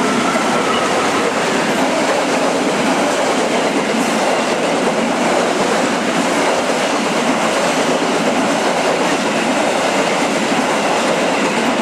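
Passenger train passing close by at speed: a loud, steady rush of wheels and wind. The tail of the locomotive's horn dies away about a second in.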